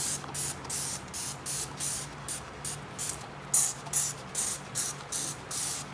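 Dawn Powerwash trigger spray bottle squeezed over and over, a quick hissing squirt about two or three times a second.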